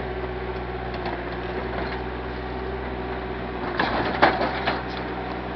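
Backhoe engine running steadily, with a short cluster of knocks about four seconds in.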